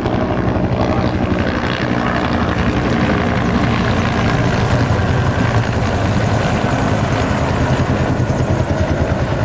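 Two Bell AH-1 Cobra attack helicopters flying overhead, their two-bladed main rotors beating in a loud, steady, rapid chop.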